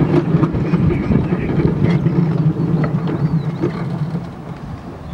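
Miniature railway train running on its track: a steady low rumble with scattered clicks, dropping away about four seconds in.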